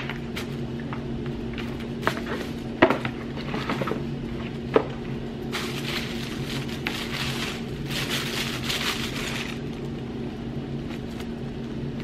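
Rigid cardboard shoe box being opened by hand: a few sharp knocks and taps as the lid comes off and the box is handled, then the paper wrapping inside rustling and crinkling in two spells as it is folded back, over a steady low hum.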